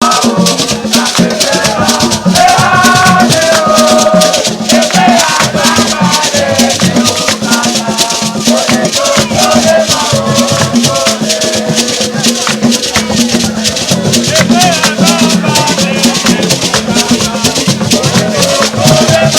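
Music driven by a fast, steady shaker rhythm and drums beneath a melody.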